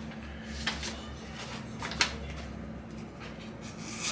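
Paper rustling as a sheet is handled and sliced with a sharp, thin-edged knife blade, with a couple of short crisp cuts, the clearest about two seconds in.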